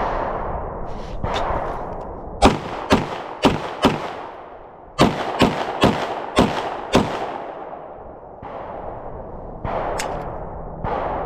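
Rapid 9mm pistol fire, about ten shots: a string of four roughly two a second, a short pause, five more at the same pace, then a single shot near the end. Each shot is a sharp crack with a brief echo.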